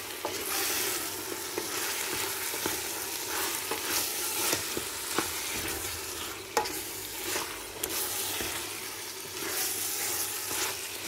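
Marinated mutton searing in hot oil in a pressure cooker, sizzling steadily while being stirred, with occasional sharp clicks.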